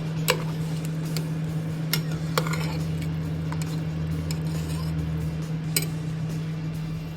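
Kitchen utensils and cookware clinking and knocking together, about six sharp irregular clinks, over a steady low hum.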